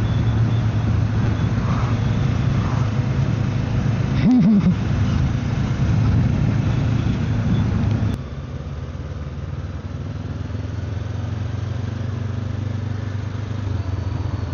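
Motorcycle engine running steadily, with a brief rise and fall in pitch about four seconds in. It turns noticeably quieter about eight seconds in and runs on at that lower level.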